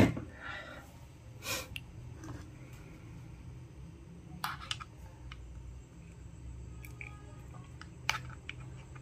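Handling of a vape box mod and a rebuildable dripping atomizer (RDA) as the atomizer is fitted onto the mod's 510 connector: scattered small clicks and taps of hard parts, the sharpest about a second and a half in, four and a half seconds in and near the end, over a low steady hum.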